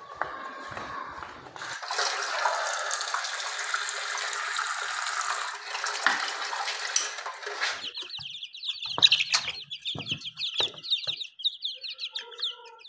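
Water running from a tap into a plastic bowl for about six seconds, then cut off. After that, chicks peep rapidly and high-pitched, with a few knocks among them.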